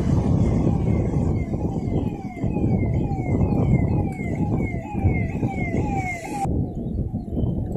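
Wind buffeting the microphone in a heavy low rumble, over a siren-like tone that falls in pitch again and again, about two and a half times a second, growing louder before it cuts off abruptly near the end.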